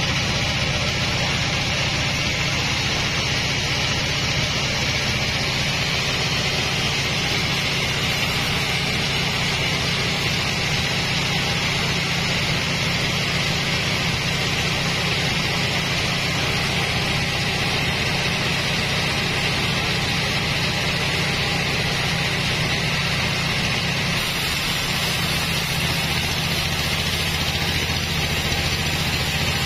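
Stationary engine driving a belt pulley, running steadily with a continuous low drone and hiss.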